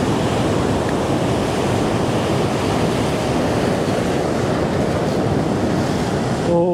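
Ocean surf breaking and washing over rounded shoreline boulders: a steady, unbroken rushing of white water.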